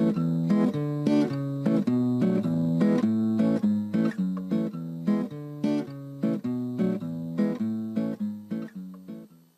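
Background music: acoustic guitar strummed and picked in a steady rhythm, fading out near the end.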